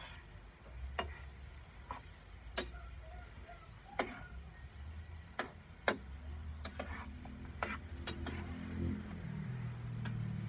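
Kamote cue frying in a pan of oil and caramelizing sugar: sharp clicks come about once a second, irregularly, over a low steady hum.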